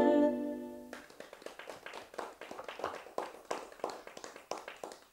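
A song's final held chord dies away over about a second, then a few people in a small audience clap sparsely.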